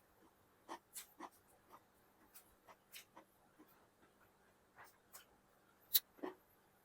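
Close eating sounds of a person eating chicken biryani: irregular soft clicks and smacks of chewing, a few each second at most, the sharpest about six seconds in.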